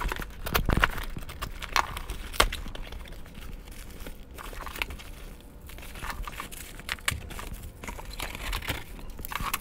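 Cardboard box being opened: packing tape slit with a utility knife, flaps pulled open, and bubble wrap and packing crinkling as the contents are handled. An uneven string of scrapes, taps and crackles.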